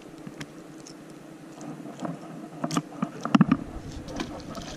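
Light taps and knocks on a wooden dock as a freshly caught Atlantic mackerel is handled and flops about, with a cluster of louder knocks and a thump about three seconds in.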